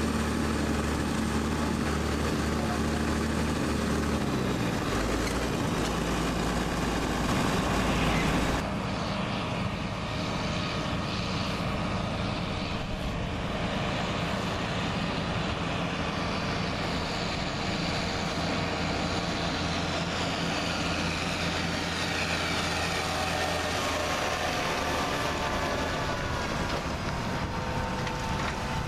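Engine of a farm machine running steadily, its sound changing abruptly about a third of the way in.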